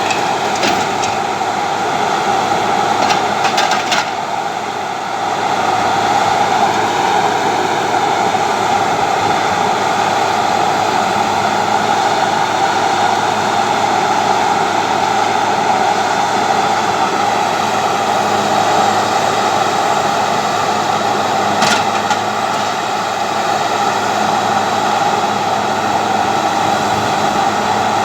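Heavy machinery's diesel engine running steadily under load, with a few short knocks near the start and one more a little after the middle.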